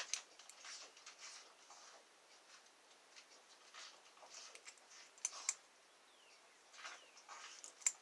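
Faint scraping and clicking of a steel lock pick working the pins of a six-pin Master Lock safety-series core under tension, with a few sharper metallic ticks about five seconds in and near the end.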